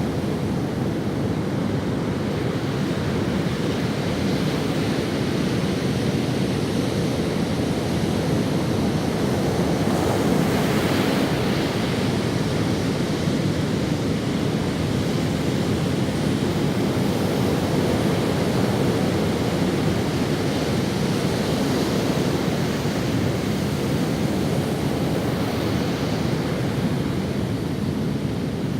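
Ocean waves breaking and washing up on a sandy beach: a continuous deep surf rush that swells a little about ten seconds in and again near the end.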